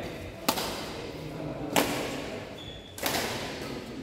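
Badminton rally: rackets striking the shuttlecock three times, sharp cracks about a second and a quarter apart, echoing in a large hall.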